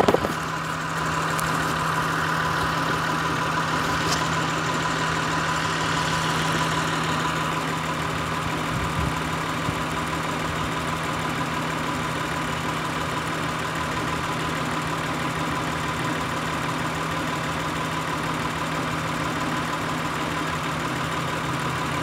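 2003 Acura TL Type S's 3.2-liter V6 idling steadily while it runs on five cylinders: the coil pack on cylinder one is not firing, so unplugging that coil's connector brings no drop in idle speed.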